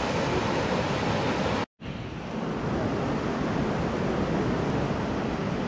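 Merced River rapids rushing below the bridge, a steady white-water noise mixed with wind buffeting the microphone. The sound cuts out for a split second a little under two seconds in.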